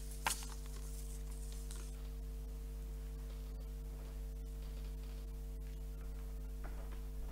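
Quiet room tone dominated by a steady electrical hum, with a single sharp click shortly after the start and a few faint soft knocks that fit footsteps.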